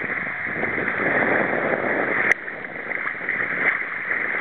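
Sea water splashing and sloshing as a small child in armbands swims and kicks in the shallows. There is a sharp click a little past halfway, after which the sound is quieter.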